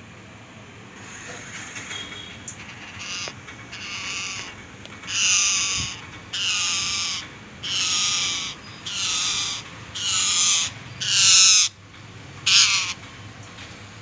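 A caged parakeet screeching. Softer calls build over the first few seconds, then come about seven loud, harsh calls, each under a second long and about a second apart.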